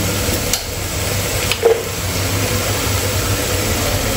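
Onion-tomato masala with ground spices sizzling in a pan as it is stirred, with a couple of light clicks of the spoon, over a steady low hum.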